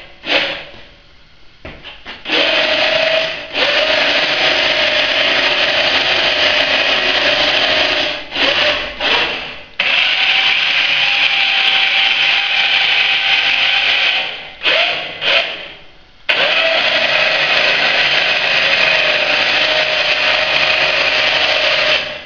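Electric winch motor running in several runs of a few seconds each, with short stop-start jogs between them. It gives a steady whine over gear noise as it raises and lowers the grader blade.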